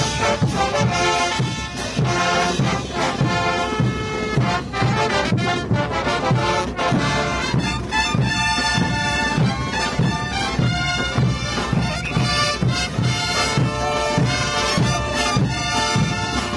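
Festival band music, brass and wind instruments playing a melody over a steady drum beat of about two strokes a second, accompanying a folk dance.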